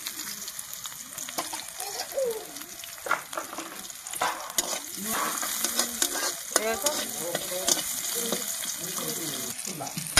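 Chopped garlic and red chilli sizzling in hot oil in a steel kadai, with a metal spatula scraping and stirring against the pan's steel sides now and then.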